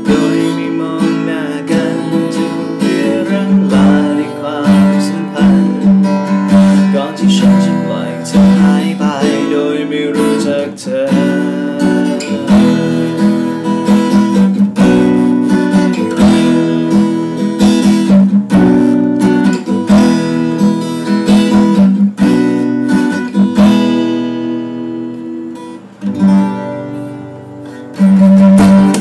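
Acoustic guitar played without singing, strummed and picked chords ringing one after another. The playing thins out and quietens near the end, then one last loud chord sounds just before it stops.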